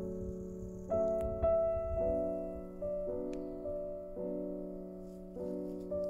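Slow, gentle solo piano background music, with held notes and chords struck about once a second and left to ring and fade.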